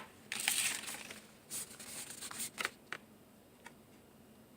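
Packaging of a new folding knife being handled and opened, crinkling and rustling in several short bursts over the first three seconds, then going quiet.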